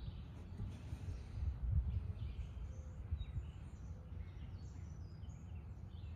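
Outdoor background: a low, uneven rumble with faint bird chirps.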